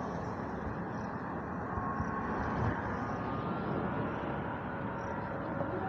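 Steady hum of road traffic, with faint engine tones coming and going.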